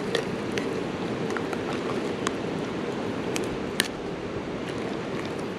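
Steady rush of flowing creek water, with a few light clicks scattered through it.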